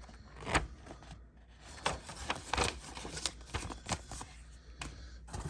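Quiet handling noises: about half a dozen scattered light clicks and soft rustles as objects are handled.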